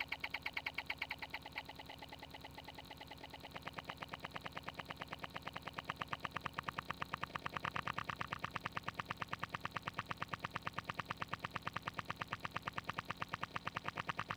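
Heavily effects-processed logo audio turned into a rapid, even electronic buzzing pulse, like a synthesizer. It drops quieter about two seconds in and swells louder again from about six seconds.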